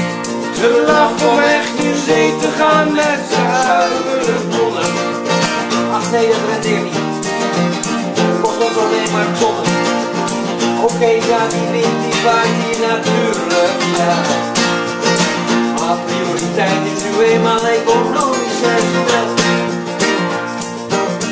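Acoustic guitars, a steel-string and a nylon-string, playing an instrumental passage of a song: steady strumming with a melody line over it.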